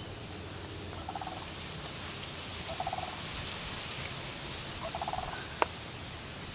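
Ducks quacking in short rapid bursts, three in all, over a steady hiss, with a single sharp click shortly before the end.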